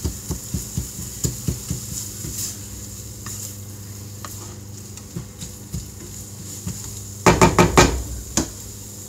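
A spatula stirring and knocking scrambled eggs around a non-stick frying pan over a quiet sizzle, with quick taps against the pan in the first couple of seconds and a short burst of louder clatter about seven seconds in.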